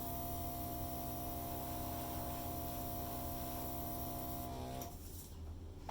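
Hair dryer running, a steady motor hum under a rush of air, switched off about five seconds in.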